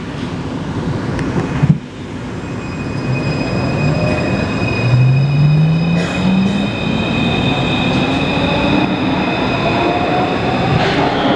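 Taipei Metro 341-type refurbished train pulling away, its traction inverter whining in tones that rise steadily in pitch, with steady high tones above them and a sharp knock about two seconds in. The uploader takes this inverter noise for abnormal.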